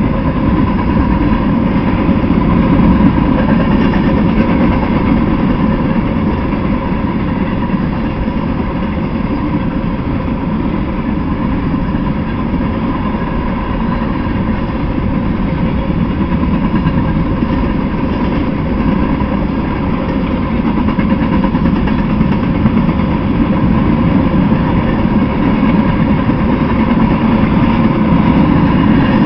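Freight train of covered hopper cars rolling past: a continuous steady rumble of steel wheels on the rails, with a faint steady hum running under it.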